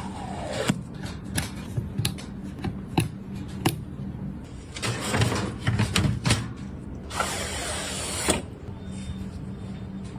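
Computer parts being handled and fitted during a PC build: a run of sharp clicks, taps and scrapes, with a longer hissing rustle about seven seconds in, over a faint steady hum.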